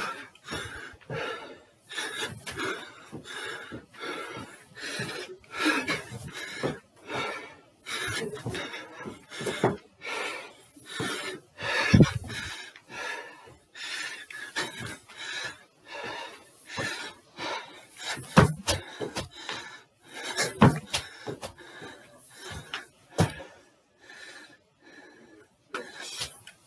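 A man breathing hard, panting in and out about once a second from the exertion of repeated step-ups on a stair, with a few dull knocks of his feet on the step.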